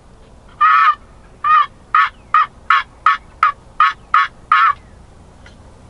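A series of about ten hen-turkey yelps, loud and close. The first is drawn out and the rest are short and evenly spaced, ending about a second before the end.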